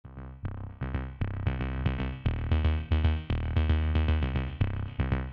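Electronic intro music with a steady beat and a heavy bass line.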